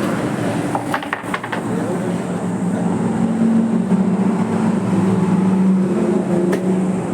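A steady low motor or engine hum, with a few sharp clicks and knocks over it.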